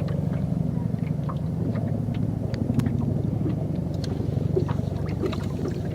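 Boat engine running steadily with a low, even drone, with scattered light clicks and taps over it.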